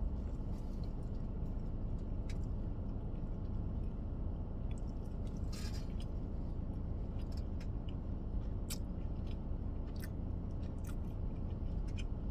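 A person chewing a big mouthful of brisket sandwich, working a long time at meat that is very chewy, with scattered short wet mouth clicks and a brief crackle about five and a half seconds in. A steady low rumble of the car interior runs underneath.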